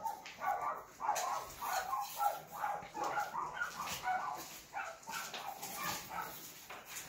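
A dog whining and yipping in short, high calls, several a second, one after another.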